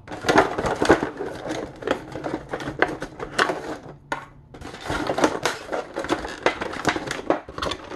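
Stiff clear plastic blister packaging crackling and clicking as it is handled, with small knocks as metal-cased C/D battery adapters are taken out and set down on a countertop. A short pause about four seconds in.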